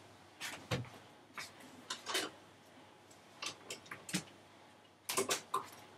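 Soft knocks, clicks and rustles of a person getting up and moving about close to the microphone, with clothing brushing past it, scattered irregularly and bunching together about five seconds in.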